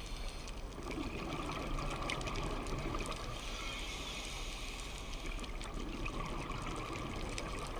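Underwater ambience picked up by a camera in its housing during a scuba dive: a steady, muffled watery rush with scattered faint clicks.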